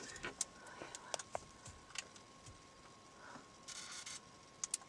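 Faint handling noise from a handheld camera inside a car: scattered small clicks and ticks over a faint steady high hum, with a short hiss about four seconds in.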